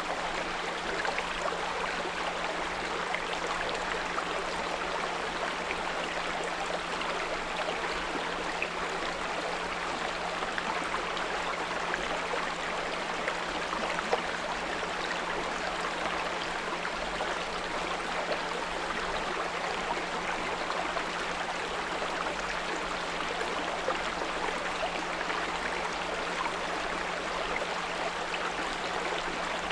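Small brook flowing steadily, with an even rush of water, overlaid by a continuous low 174 Hz pure tone.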